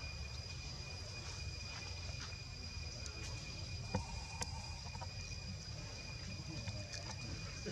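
A steady high-pitched insect drone with no change in pitch, over a low rumble, with a few sharp clicks about four seconds in and again near the end.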